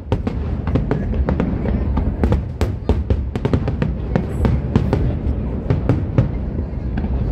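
Aerial fireworks bursting in quick succession: a string of sharp bangs and crackles, several a second, over a continuous low rumble.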